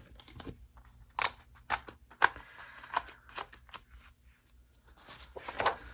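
Paper planner pages being handled: light rustling with a scatter of short clicks and snaps, the sharpest about two seconds in and another cluster near the end.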